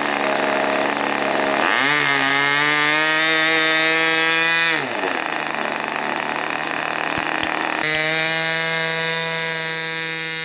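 Small glow-plug model airplane engine running on the ground after a flame-out and dead-stick landing. It is throttled up about two seconds in, held, dropped back to a lower setting near five seconds, and raised again about eight seconds in.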